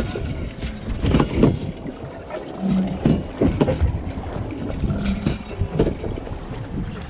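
Wind buffeting the microphone over a steady low boat rumble, with irregular rustles and knocks from hands handling a cloth and fishing line right at the camera.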